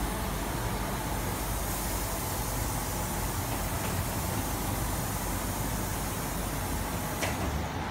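Steady hum and hiss inside a Tangara electric train carriage, with one short click near the end.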